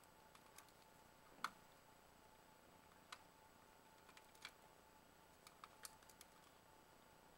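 Faint, scattered clicks and ticks as electrical wires and the plastic body of a 4-gang touch switch are handled during wiring into a wall box. The sharpest click comes about a second and a half in.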